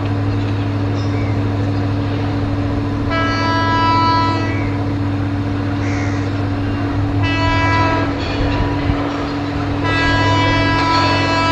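Air horn of an approaching WAP-7 electric locomotive sounding three times: a blast of about a second and a half, a short toot, then a long blast near the end, over a steady low hum.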